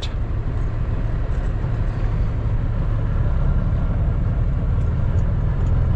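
Inline-six Cummins ISX diesel of a Kenworth W900L semi running as the truck rolls slowly, heard from inside the cab as a steady low drone.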